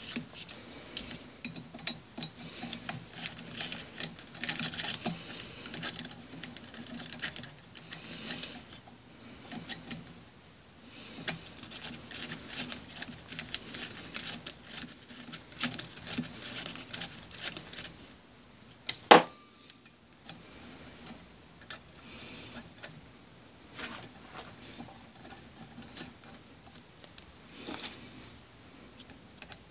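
Small hand ratchet clicking in quick runs as its socket is worked back and forth on a fastener, with light metallic taps and rattles of tools against the engine. One sharp metallic clink comes about two-thirds of the way through.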